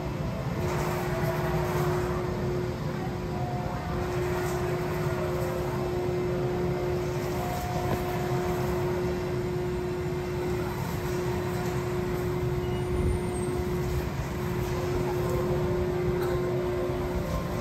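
Swing ship carnival ride in motion: a steady mechanical hum with a droning tone that drops out briefly every three seconds or so.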